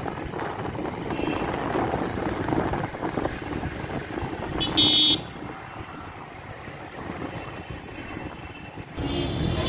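Street traffic heard from a moving motorbike: steady engine and road noise, with one short horn toot about five seconds in. The sound grows louder again near the end.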